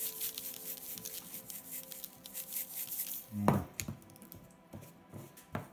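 Sprinkles rattling out of a shaker container, a dense rapid patter of tiny grains for about three seconds, then tapering off to scattered ticks. A brief louder sound about three and a half seconds in.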